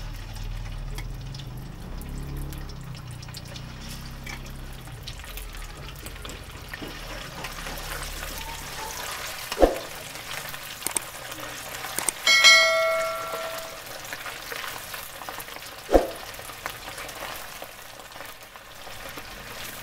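Marinated beef slices deep-frying in hot oil in a stainless steel wok, a steady crackling sizzle, with a metal ladle knocking against the pan twice. About twelve seconds in, a loud metallic clang rings out and fades over a second or so.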